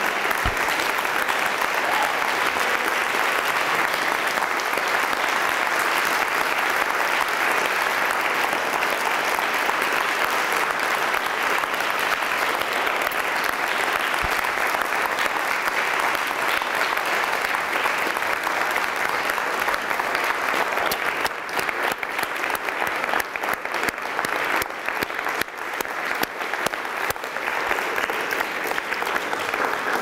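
Audience applauding, a dense steady clapping that thins out into separate claps in the last several seconds.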